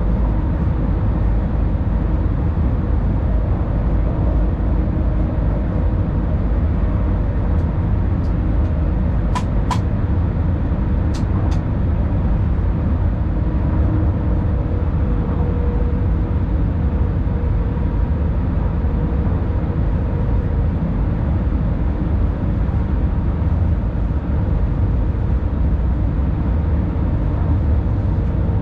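Steady low rumble of a tilting electric train running through a tunnel, heard from the driver's cab, with a faint steady hum over it. A few sharp clicks come in two quick pairs about a third of the way in.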